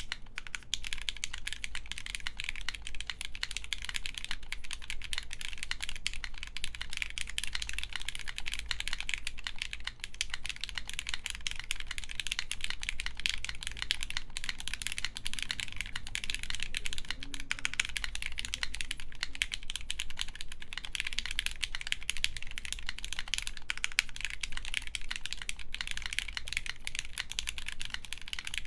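Continuous fast typing on a Zero-G Great Sword mechanical keyboard with lubed Gateron X linear switches, an FR4 plate and CRP R4 keycaps: a dense, even run of key clacks.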